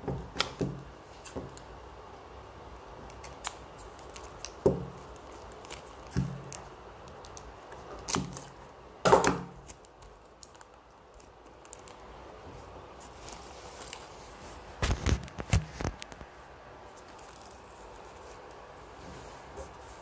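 Intermittent clicks, taps and knocks of scissors and paper being handled on a tabletop. There is a sharper knock about nine seconds in and a few dull thumps around fifteen seconds.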